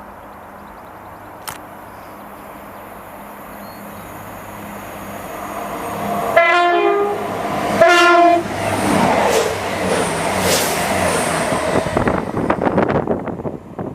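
Train horn sounded in two short blasts, then the train running through the station, its wheels rumbling and clattering on the rails.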